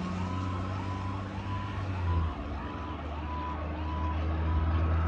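Fire engine's electronic siren on a fast yelp, sweeping up and down about twice a second, over a steady low drone from the truck.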